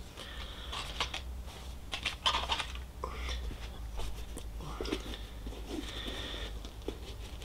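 Hands handling cardboard hang tags and a kids' hiking boot: irregular rustling, crinkling and small clicks, with a few brief squeaks of the boot's material as it is picked up and turned.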